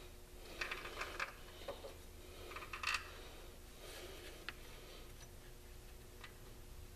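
Faint, irregular metal clicks and scrapes of a hand tool being worked against a pulley on an engine, in a few small clusters.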